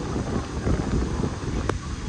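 Wind buffeting the microphone: an uneven low rumble, with one sharp click near the end.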